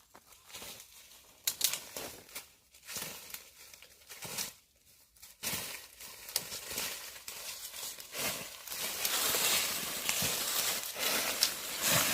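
Irregular crinkling and rustling with scattered crackles, becoming denser and more continuous about eight seconds in.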